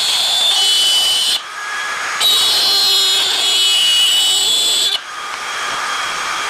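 Electric power tool motor running with a high whine, swelling louder for a few seconds at a time and dropping back briefly twice, as if working into the wood and easing off.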